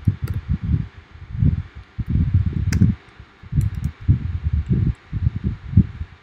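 Low, irregular rumbling noise that comes and goes in gusts, like air buffeting a microphone, with a few sharp clicks, the clearest a little under three seconds in.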